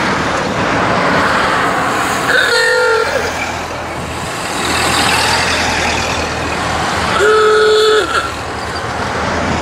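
A procession of vintage Ford Model A cars driving past, engines and tyres running, with two car horn toots: a short one a little over two seconds in and a longer steady one near the end.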